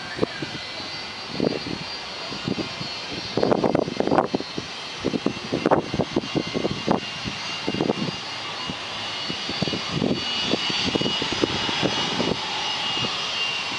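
Twin jet engines of a Boeing 757 on its takeoff roll, heard at a distance as a steady whine that grows stronger in the second half. Irregular gusts of wind buffet the microphone throughout.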